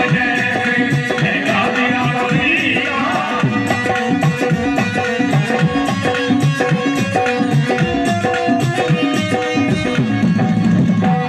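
Qawwali instrumental passage: harmoniums hold and move between sustained reedy notes over a fast, steady hand-drum rhythm.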